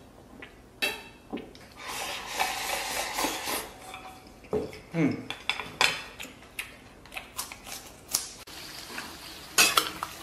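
Chopsticks clicking and scraping against a bowl as someone eats, with scattered sharp clinks and knocks of tableware. About five seconds in there is a brief low falling vocal sound, and near the end a louder clatter.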